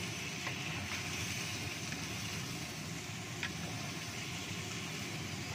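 Boiled chicken pieces frying in a wok with sautéed spice paste, giving a steady sizzle as they are stirred with a wooden spatula. The spatula knocks against the pan a couple of times.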